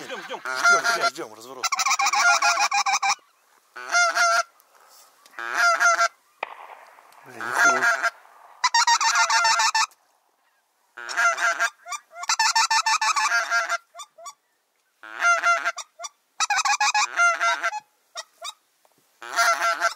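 Goose honking: loud, rapid, pulsing honks in bouts of about a second, repeated about ten times with short quiet gaps between.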